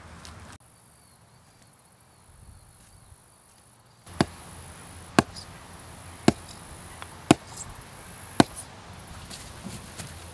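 A hammer pounding a wooden branch stake into sandy ground: five sharp blows about a second apart, starting about four seconds in.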